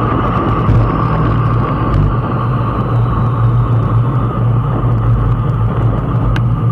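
Steady rush of wind on the camera microphone, mixed with tyre rumble, as a road bike descends at speed, with an occasional faint click.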